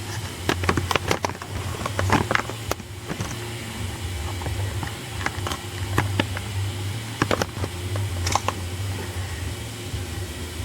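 Scattered light clicks and taps of handling, over a steady low hum.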